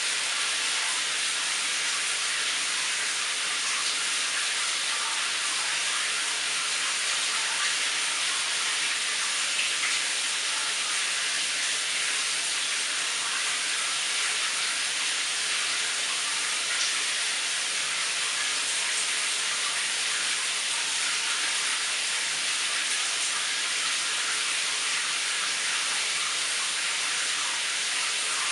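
Shower running in a tiled cubicle: a steady hiss of water spray that does not change.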